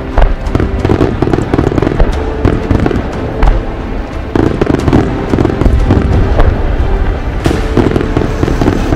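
Aerial fireworks shells bursting in quick succession, many overlapping bangs and crackles.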